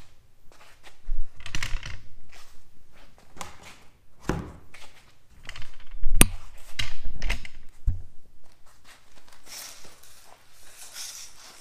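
Scattered knocks and clunks of things being handled and set down, with one sharp click about six seconds in, the loudest, and a soft rustling near the end.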